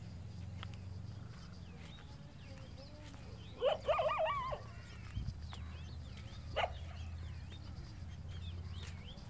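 A short burst of loud animal calls, several rising and falling cries in quick succession about three and a half seconds in, then a single short call a few seconds later. Faint high chirps run through, over a steady low rumble.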